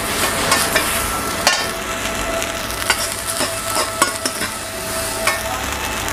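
Steel ladle scraping and clinking against a wok as fried rice is scooped out, a few irregular sharp knocks over a steady frying sizzle.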